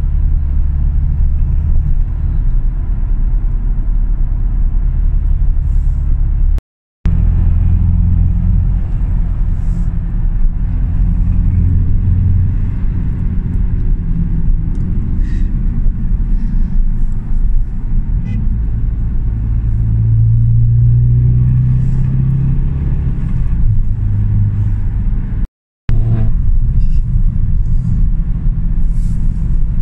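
Car engine and road rumble heard from inside the cabin while driving at speed, the engine note rising and falling a few times. The sound drops out twice for a fraction of a second.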